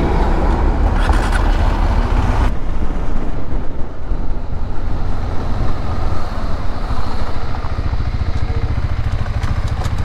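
KTM 390 Adventure's single-cylinder engine running on the move, with a rush of wind and road noise that drops away abruptly about two and a half seconds in.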